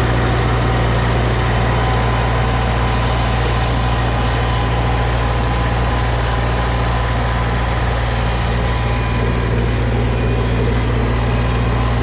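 Small gasoline engine running steadily at one unchanging speed, a constant low drone.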